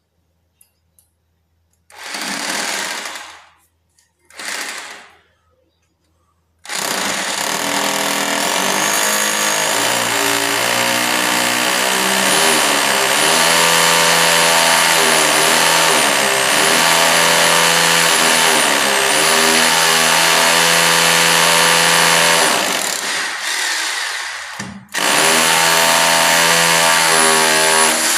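Handheld electric angle grinder cutting into ceramic floor tile: after two short bursts of noise, it runs loud and continuous with a high whine, its motor pitch sagging and recovering as the blade is pressed into the tile. It stops briefly a few seconds before the end, then starts up and cuts again.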